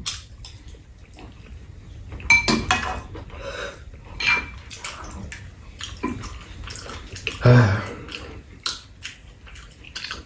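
Metal spoons clinking and scraping against ceramic bowls in scattered short ticks, a couple of them ringing briefly, with slurping and chewing of people eating soup; one louder slurp comes about seven and a half seconds in.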